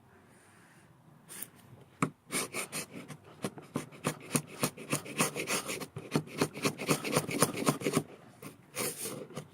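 Steel chisel blade rubbed rapidly back and forth on a sharpening stone, about four short strokes a second, starting about two seconds in and stopping shortly before the end: honing to clean up the edge.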